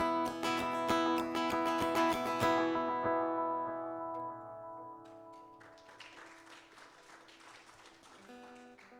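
Acoustic guitar strumming chords for about two and a half seconds, then letting a chord ring and fade, with a soft new chord near the end.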